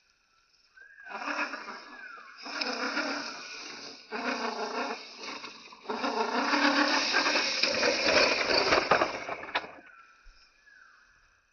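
Electric motor and gearbox of an RC rock crawler running in several throttle bursts as it climbs over rocks. The longest and loudest burst comes in the second half, and then the motor stops.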